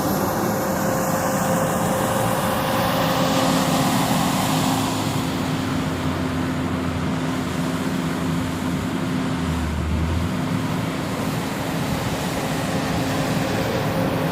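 JCB 426ZX wheel loader's diesel engine running steadily under work, with a steady droning tone.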